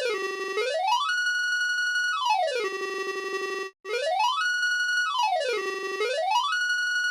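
Synthesized emergency-alert siren, a buzzy electronic wail. It glides up, holds a high note, glides down and holds a low note, repeating every two to three seconds. It cuts out for an instant about halfway through and starts the cycle over.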